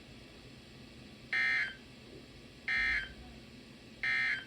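Emergency Alert System end-of-message data bursts: three short, identical buzzy bursts of data tone, about a second and a half apart, signalling the end of the alert.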